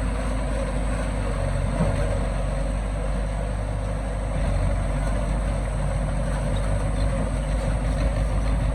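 Heavy diesel engine of earthmoving machinery, a bulldozer or dump truck, running steadily, getting slightly louder about four seconds in.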